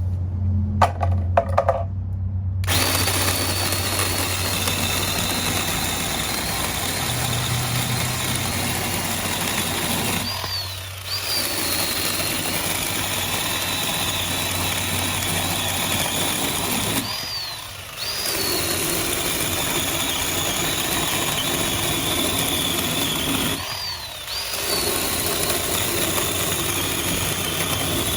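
Ryobi One+ 18V 10-inch cordless chainsaw running, a steady electric-motor whine over the chain noise, during demonstration cuts through branch pieces. It starts a few seconds in, and three times the trigger is briefly let off, the whine dropping and then rising again as it speeds back up.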